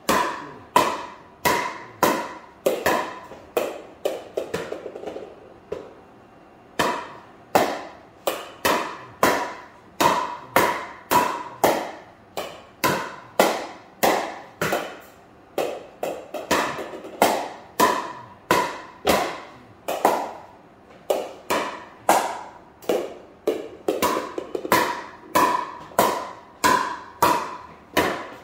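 Pickleball paddle striking a plastic pickleball again and again in a quick solo rally, about two sharp, ringing pops a second. About three seconds in the hits break off for some seconds, leaving a softer clatter.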